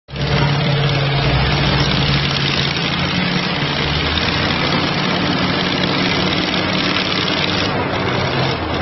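Doosan DL300 wheel loader's diesel engine running steadily, with a loud, even rushing noise over it.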